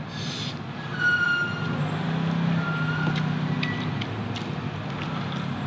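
Eating sounds of someone chewing and smacking with his mouth as he eats rice by hand, as scattered sharp clicks. Under them runs a steady low engine-like hum.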